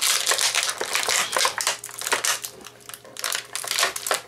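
Plastic action-figure packaging crinkling and crackling as it is handled and pulled apart by hand, with a short lull about two and a half seconds in.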